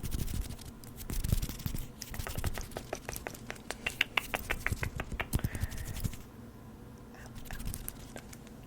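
Light tapping and scratching, a quick run of sharp clicks. The clicks come fast and fairly evenly in the middle, then stop about six seconds in, leaving a quieter stretch.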